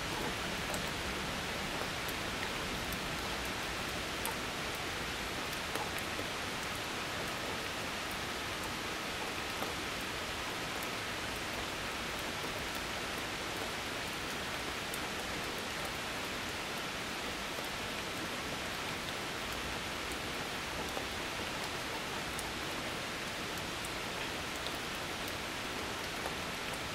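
Steady rain falling, an even hiss with a few faint ticks and no thunder.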